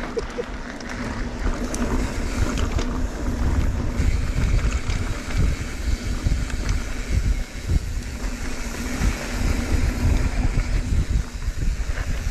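Wind buffeting the microphone in a gusting rumble, with a steady low hum underneath, typical of a camera carried along at speed.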